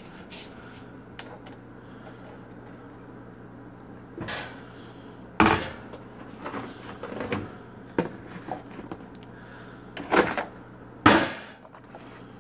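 Several separate knocks and clatters of plastic and dishware being handled and set down in a kitchen sink, the loudest about five and eleven seconds in, over a steady low hum.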